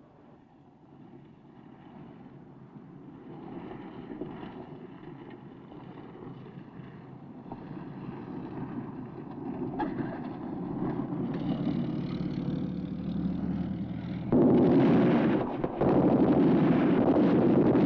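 Military jeep engine running as the jeep approaches over a dirt road, growing steadily louder. About fourteen seconds in the sound jumps suddenly much louder, with a brief dip a second later, and stays loud.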